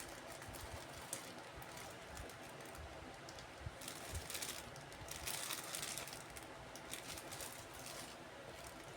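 Faint rustling and crinkling of plastic packaging being handled, with scattered light clicks; the crinkling is busiest midway through.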